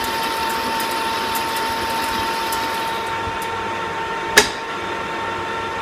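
Metal lathe running under power feed, cutting 1018 cold-rolled steel: a steady machine hum with a high steady whine. A single sharp click comes about four seconds in.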